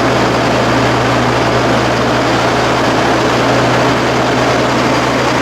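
Sterling LT7500 hydro-excavator truck's diesel engine running steadily at raised throttle, around 1,800–2,000 RPM, to give the jet vac its maximum pressure. A steady low hum sits under an even rushing noise.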